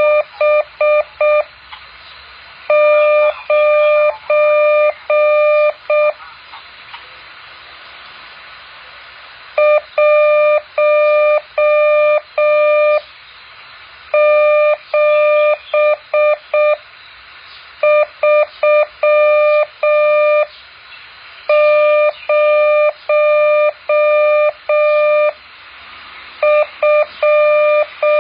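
Morse code practice tone: one steady mid-pitched beep keyed on and off in dots and dashes at a slow speed. The characters come in groups of about three seconds, with a pause of about a second between groups.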